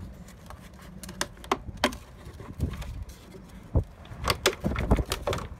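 Plastic clicks, taps and rattles of a van's tail light bulb carrier being handled with gloved hands after its clips are released, coming thicker about four seconds in.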